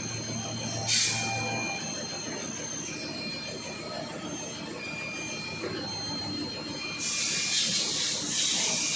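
Machine running with several high-pitched whining tones that come and go, a short burst of hiss about a second in, and a louder steady hiss from about seven seconds in.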